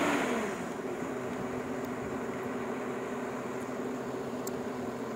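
JCB tracked excavator's diesel engine running steadily as it digs and loads, a constant hum with a few faint ticks.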